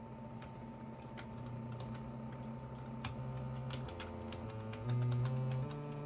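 Keys clicking on a computer keyboard in irregular taps, over a low buzzing synth tone. From about four seconds in, the synth tone steps between different pitches as notes are keyed in, and gets louder about a second later.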